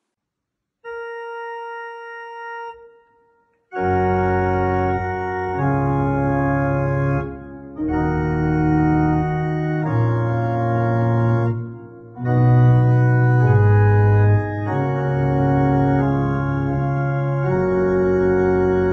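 Organ playing a threefold Amen: a single soft held note, then from about four seconds in full sustained chords that change every couple of seconds.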